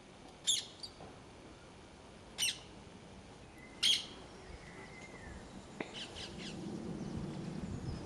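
A bird in the trees gives three loud, short, harsh calls a second or two apart, then fainter calls about six seconds in. A low rumble builds near the end.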